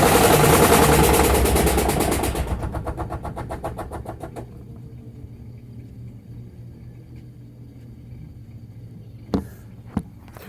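Samsung washing machine running loudly in a fast spin, then winding down: the noise breaks into a rhythmic beat that slows and fades over about two seconds, leaving a low hum. Two sharp clicks near the end.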